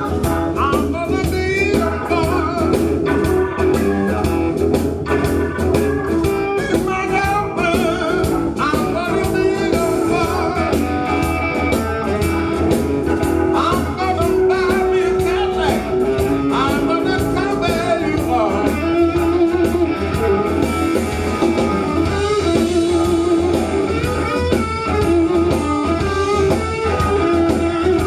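Live electric blues: a man belting out a vocal over electric guitar, with a steady bass line and drums behind. Toward the end the singing gives way to the electric guitar.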